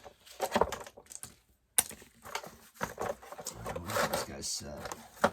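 Irregular clicking, tapping and knocking as hands work the kayak's outfitting hardware: plastic hip pads, screws and washers. The sound breaks off in a brief dead-silent gap about one and a half seconds in.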